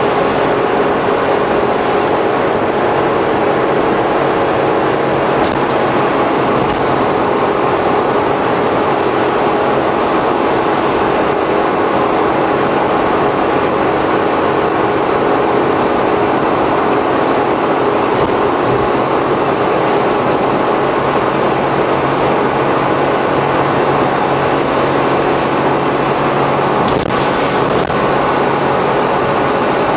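Suzuki Every kei van with Auto Gear Shift cruising steadily at expressway speed, heard inside the bare rear cargo area. Its 660 cc three-cylinder engine hums evenly under road and wind noise, with no gear change.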